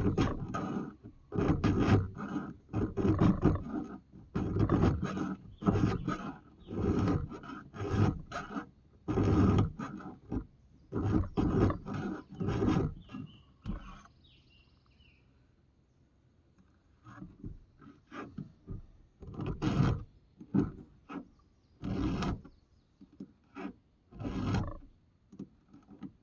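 Hand file rasping across the teeth of a chainsaw chain in repeated strokes, about one a second, sharpening a chain dulled by cutting into dirt. The strokes stop for about three seconds midway, then go on more slowly.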